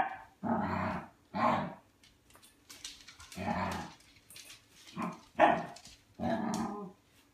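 Small dog barking at its empty metal food bowl, demanding food: about six barks at uneven intervals, some short and some drawn out.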